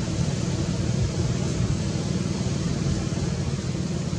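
Steady low rumble with an even hiss, the running noise of a vehicle.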